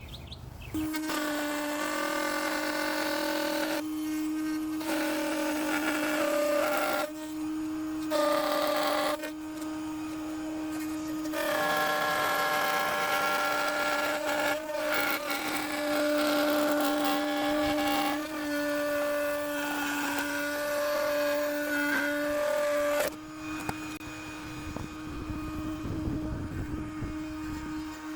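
Router table motor spinning a flush-trim spiral bit at a steady high speed while trimming gold plexiglass (acrylic) against a board template. It starts up about a second in, and its whine grows louder and harsher in stretches as the bit bites into the acrylic, then eases between passes.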